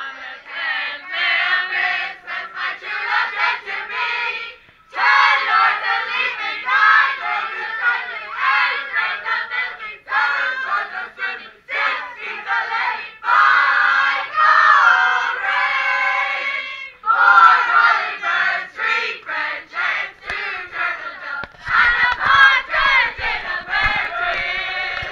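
A group of people singing and shouting together in chorus, loud, in phrases, with short breaks about five and seventeen seconds in.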